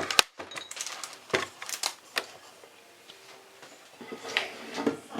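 Irregular sharp clicks and knocks, as of small hard objects being handled, with quieter rustling between them.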